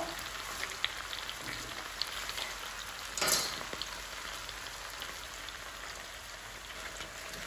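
Pak choi stir-frying in a wok: a steady sizzle with scattered small crackles, and a brief louder rush about three seconds in.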